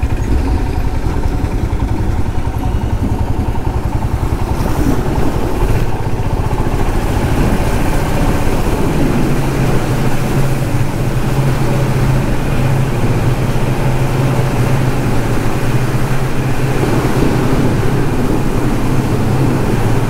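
Motorcycle engine running at low speed inside a brick-arched tunnel, its note steady, with a low hum that grows stronger about nine seconds in.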